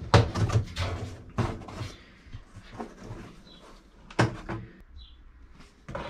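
Plastic neck ring of a Fisher & Paykel SmartDrive washing machine being unclipped from the outer bowl: several sharp plastic clicks and knocks, the loudest in the first second and a half and again about four seconds in.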